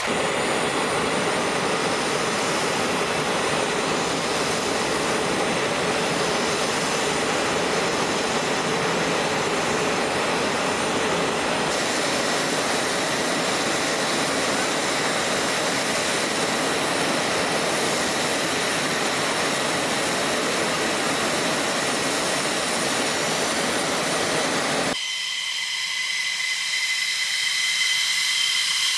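Steady jet engine noise on an F-15 flight line: an even rush for about 25 s, then a sudden cut to a higher turbine whine with several steady tones from an F-15's Pratt & Whitney F100 engine running.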